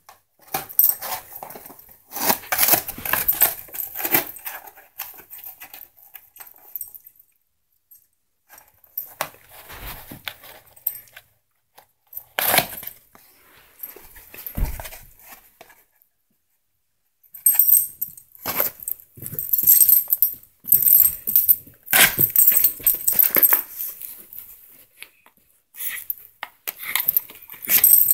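A dog chewing and gnawing on a roller: irregular spells of crunching and scraping, broken by a few short silent pauses.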